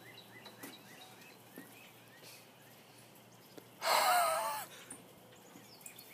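A person's short, breathy vocal noise with a wavering pitch, about four seconds in. Faint high chirps repeat about three times a second behind it.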